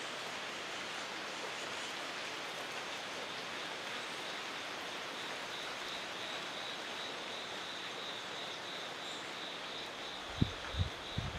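Steady outdoor background hiss with a high, evenly pulsing insect trill. Near the end come three short low thumps about half a second apart, the loudest sounds here.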